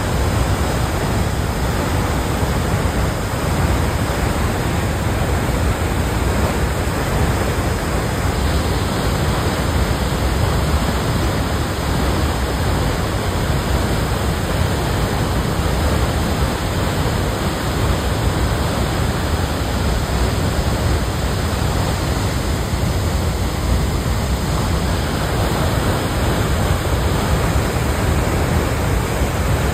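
Lahar, volcanic mud and debris mixed with rainwater, pouring down a waterfall and over a rocky riverbed: a steady, deep rushing noise that does not let up.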